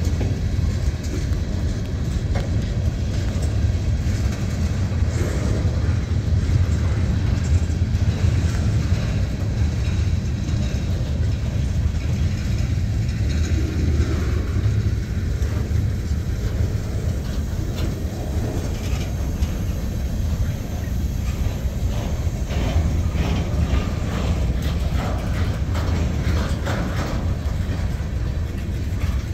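Freight cars of a Norfolk Southern mixed freight train, tank cars and covered hoppers, rolling past. A steady rumble of steel wheels on rail, with scattered clicks and knocks that come more often toward the end.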